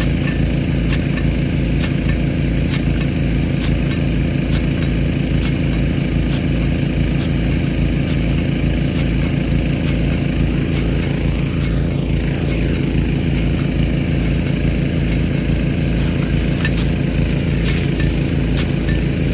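Gasoline engine-driven irrigation pump running steadily under load, with the hiss of water spraying from a big gun sprinkler and faint ticks now and then.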